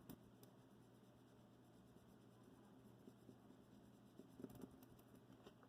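Faint scratching of a marker pen colouring over clear tape stuck on a phone's flashlight, with a few light ticks about four seconds in.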